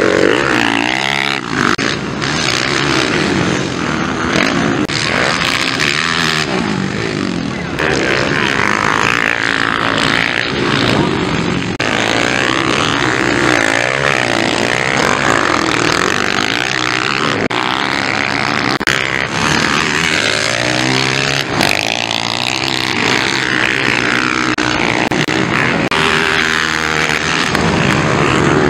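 Motocross dirt bike engines revving hard, the pitch rising and falling over and over as riders open and close the throttle through jumps and corners, sometimes several bikes at once.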